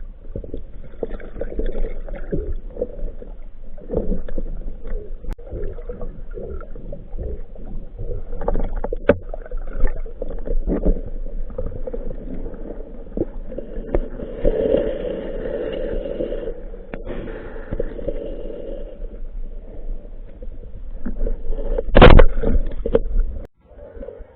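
Muffled underwater noise from a diver's camera housing: water movement and gurgling with scattered small knocks and clicks, and one loud sharp thump about two seconds before the end.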